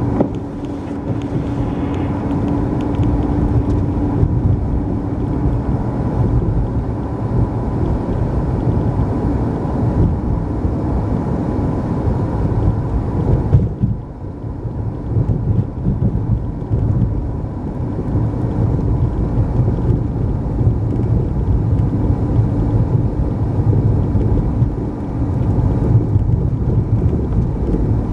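Car driving on a wet road, heard from inside the cabin: steady engine and tyre rumble, with a faint steady tone in the first few seconds. About halfway through the higher tyre hiss drops away and the low rumble carries on.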